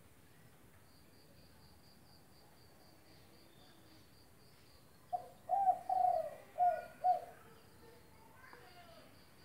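Spotted dove cooing its song: a phrase of five low coos about halfway through, the third note drawn out longest. A faint rapid pulsing high tone sounds behind it.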